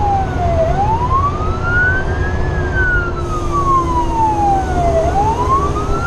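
Fire truck's siren sounding a slow wail, its pitch rising and falling about every four seconds. Heard from inside the cab over the steady rumble of the truck's engine and road noise.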